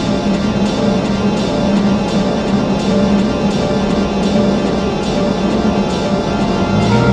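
Experimental noise music: a dense, steady wall of sound over a held low drone, with a faint pulse repeating about every three quarters of a second.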